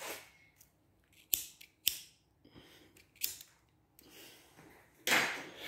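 Handling noise from the phone doing the recording: two sharp clicks about half a second apart, a softer click later, and a brushing rub near the end, from fingers shifting on the phone.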